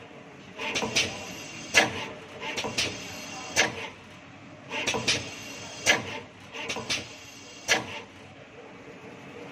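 Automatic stator terminal welding machine cycling: a short rattle of clicks, then one sharp clack, repeating about every two seconds, four times. The machine's steady hum carries on alone near the end.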